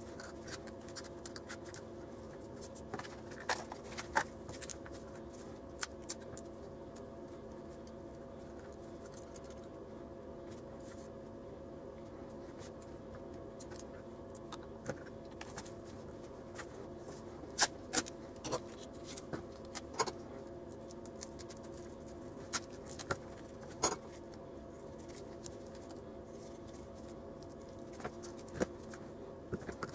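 Small objects being handled and set down on a tabletop: scattered light clicks and taps, a dozen or so, over a steady low hum.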